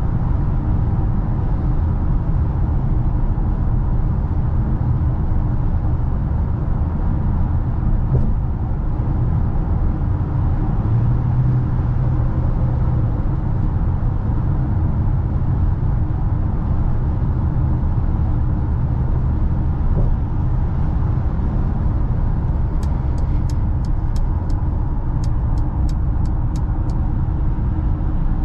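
2021 Mercedes GLA 200 with its 1.3-litre turbocharged four-cylinder, driving along with a steady low rumble of engine and tyres. A run of about a dozen quick ticks comes near the end.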